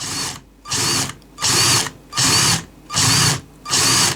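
Electric drill drilling out the rivets that hold the base of a diecast metal toy, run in short bursts of about half a second, roughly six in a row.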